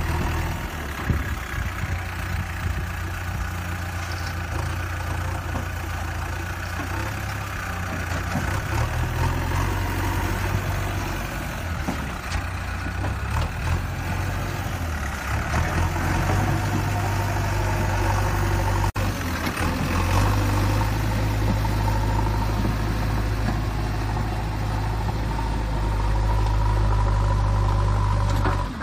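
A steady, low engine rumble, like a heavy vehicle idling, that breaks off for a moment about two-thirds of the way through and comes back somewhat louder.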